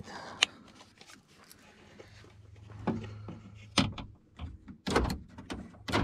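Power door lock actuators on a 1997–2001 Honda CR-V clunking as the locks are cycled, a run of short knocks over the last few seconds after a single sharp click about half a second in. The knocks mean the used replacement lock control module is working, where the original board was badly corroded.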